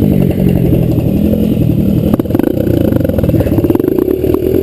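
Dirt bike engines running at idle and being revved up and down, rising and falling in pitch a few times, with some light clattering.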